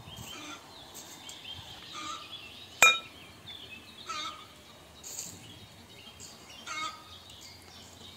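Birds calling on and off, with one sharp clink of glass about three seconds in from the glass jug and glass mixing bowl being handled.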